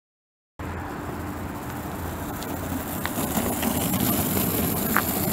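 Longboard wheels rolling on an asphalt path: a steady rumble that starts abruptly about half a second in and grows louder, with a few faint clicks.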